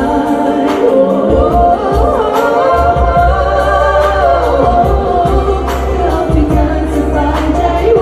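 Two women singing a Thai pop song together as a duet through a stage PA, over backing music with a steady bass line.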